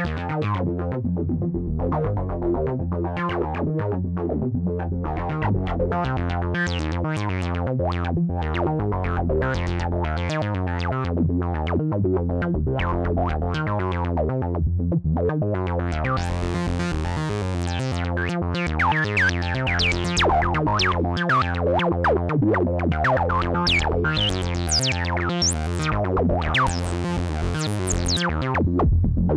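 Korg Modwave wavetable synthesizer playing a preset: a busy pattern of short notes over a sustained low bass. From about halfway through, bright tones sweep up and down in pitch above it.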